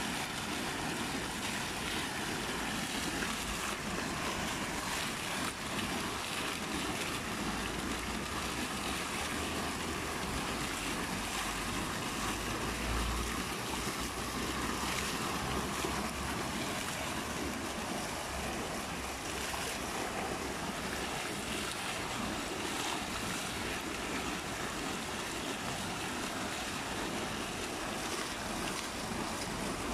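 Fountain with several vertical water jets splashing down into a stone basin: a steady rushing and splattering of falling water.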